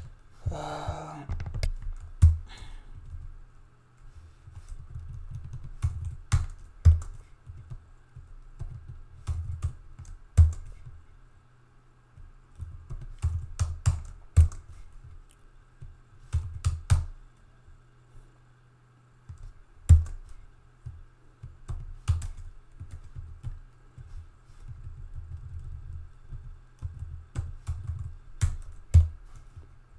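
Typing on a computer keyboard: irregular bursts of key clicks with short pauses, and a few louder single key strikes.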